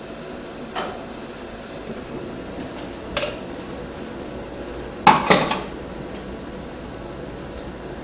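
Metal clinks of hand tools and parts being handled: light clinks about one and three seconds in, then two louder clanks in quick succession about five seconds in, over a steady background hum.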